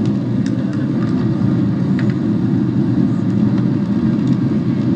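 Jet airliner cabin noise heard at a window seat: a loud, steady low rumble of the engines and airflow, with a few faint ticks.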